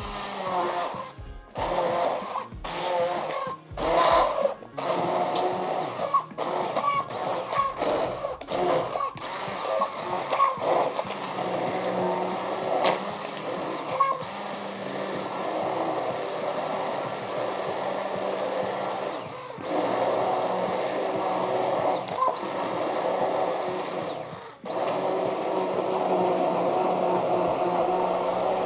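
Electric immersion (stick) blender puréeing chunks of cooked zucchini and cheese in a pot of soup. It starts in short on-off pulses, then runs steadily, stopping briefly twice near the end before running on again.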